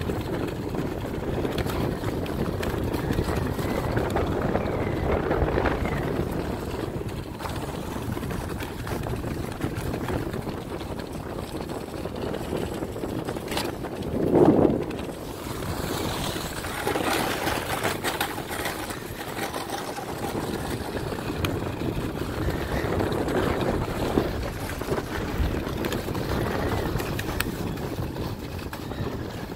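Sledge runners scraping and hissing steadily over a packed-snow road, with wind rushing on the microphone; a brief louder rush comes about halfway through.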